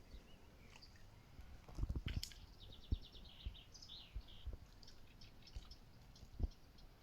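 Songbirds chirping and calling, with a quick run of repeated notes about two seconds in, over a few soft low thumps.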